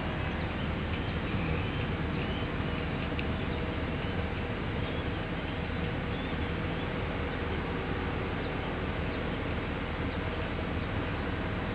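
Rail work train running along the track, heard from on board: a steady, even rumbling noise.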